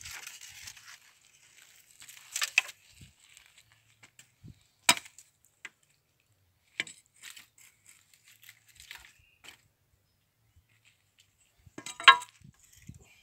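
Scattered sharp cracks and clicks of bonfire wood, a few seconds apart with quiet gaps between, the loudest about five seconds in and again near the end.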